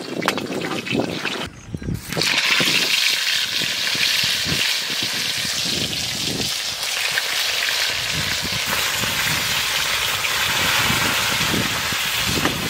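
Pieces of bhetki fish frying in hot oil: a loud, steady sizzle that starts suddenly about two seconds in and carries on undiminished.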